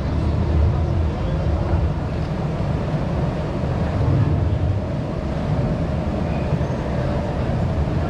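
River rapids ride: a steady low rumble of churning water and ride machinery as the round raft drifts slowly along the channel, with a faint thin hum in the second half.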